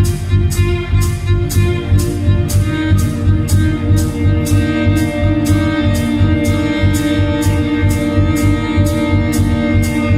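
A band playing music with sustained melodic notes over a steady, even drumbeat of about three strokes a second.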